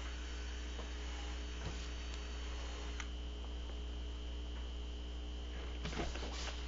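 Steady low electrical hum, with a few faint clicks and a thin high tone joining about halfway through.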